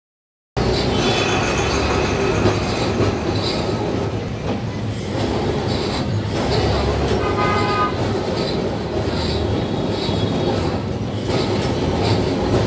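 Kolkata tram car running along its rails, heard from inside the passenger saloon as a steady rumble and rattle, with a brief high-pitched tone about seven seconds in.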